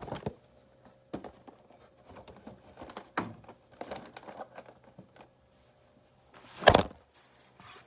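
Handling noises: scattered light clicks, taps and rustles, with one louder thump about two-thirds of the way in.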